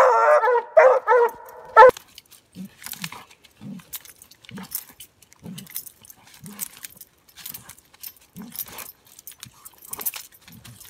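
Coonhounds bawling at a treed raccoon for about the first two seconds, stopping sharply. Then comes a much quieter stretch of short low growls about once a second, with crackling in dry leaves, as the dogs worry the raccoon on the ground.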